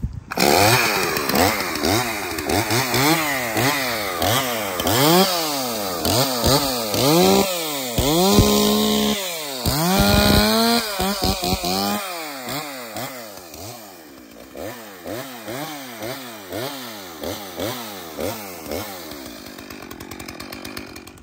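STIHL 034 two-stroke chainsaw engine revved again and again, its pitch rising and falling in quick bursts. It is held at high revs twice near the middle, then smaller revs die down toward the end.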